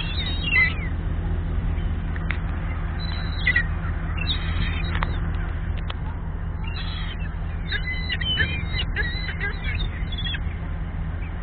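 Gulls calling, a string of short high squawking cries, thickest from about seven to ten seconds in, over a steady low hum.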